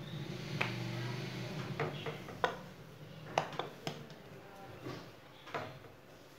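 Sharp knocks and taps on a marble countertop, about eight scattered clicks, as a small round of dough is shaped and dusted with flour with a wooden rolling pin at hand. A low hum sounds under the first second or so.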